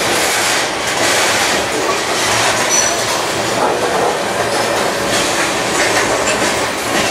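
Freight train covered hopper cars rolling past close by: a steady rumble and clickety-clack of steel wheels on the rails, with a short high wheel squeal about three seconds in.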